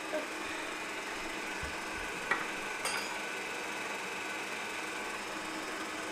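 Electric kitchen mixer running steadily, working butter into a flour mix toward the breadcrumb stage. A few light clicks sound over it near the start and around two to three seconds in.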